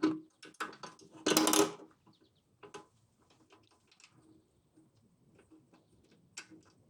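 Scattered light clicks and clinks of small stainless steel washers and hardware being handled, with one louder clatter about a second and a half in.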